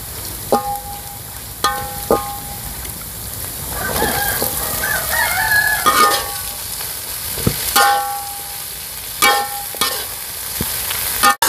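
Metal spatula knocking and scraping against a metal wok, each knock ringing briefly, over steady sizzling as genjer (yellow velvetleaf) is stir-fried in chilli-spice paste. A rooster crows about four seconds in.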